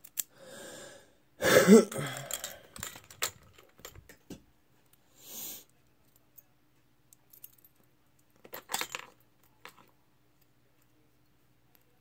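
Keys jangling and small brass lock parts clinking as an American Lock 1100 padlock is taken apart, the loudest jangle about a second and a half in. Scattered soft clicks and a couple of short rustles follow, dying away near the end.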